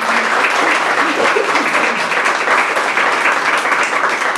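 A small group of people applauding, clapping their hands steadily and loudly.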